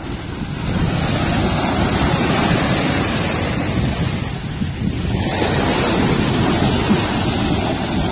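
Surf breaking and washing up the shore, a steady rush of water, with wind buffeting the microphone.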